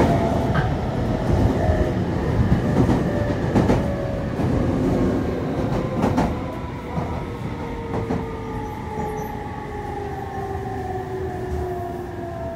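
Running sound inside a Meitetsu 3500 series electric train car: the Toyo Denki IGBT VVVF inverter and traction motor whine, several tones falling slowly in pitch as the train slows, over a steady rumble of wheels on rail. A few clicks from the wheels passing rail joints, and the whole sound gets quieter in the second half.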